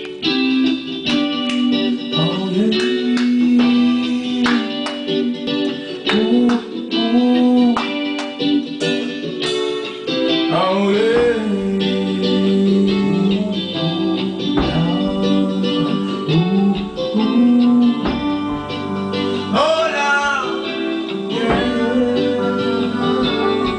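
Live reggae band playing in a rehearsal room: drum kit, keyboards and electric guitar, with a man singing into the microphone in places.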